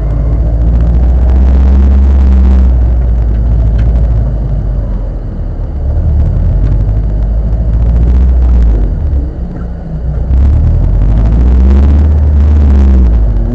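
Car being driven: a heavy low rumble of engine and road noise with an engine note that comes and goes, easing off briefly twice, about five and nine seconds in.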